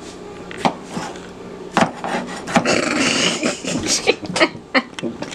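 Chef's knife slicing a cucumber on an end-grain wooden cutting board: a run of uneven knocks as the blade strikes the board, with a denser scraping stretch through the middle.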